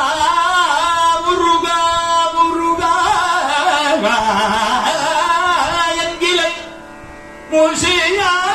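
A man singing a Tamil devotional verse to Murugan in Carnatic style into a microphone, the melody drawn out in long, wavering, ornamented notes. His voice breaks off briefly near the end and comes back with the words 'Muruga, Muruga'.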